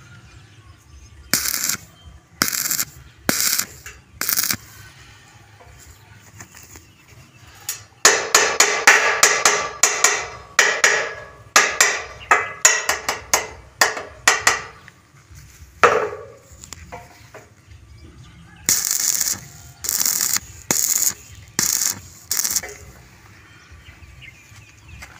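Steel-gate welding shop work: four short crackling bursts about a second apart, then a quick run of sharp metallic knocks lasting about six seconds, a single ringing hit, and another group of short bursts near the end.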